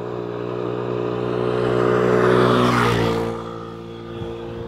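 A motor passes close by: its steady hum swells to a peak about two and a half seconds in, then fades, and its pitch drops slightly as it goes past.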